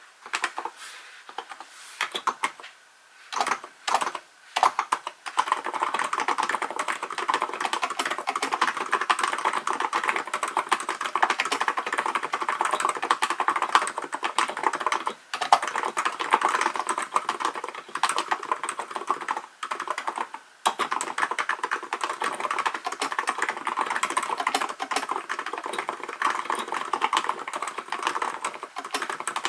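Typing on a Hansung GK898B electro-capacitive keyboard: a few separate keystrokes in the first seconds, then steady fast typing with a few short pauses.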